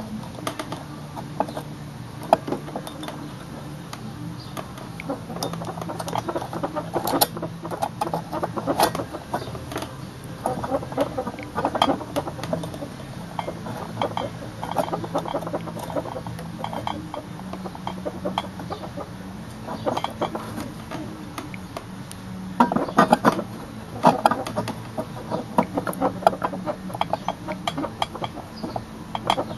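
A knife blade cutting and scraping at a hole in a tube mockup: bursts of irregular scratchy clicks, busiest near the middle and again later on, over a steady low hum.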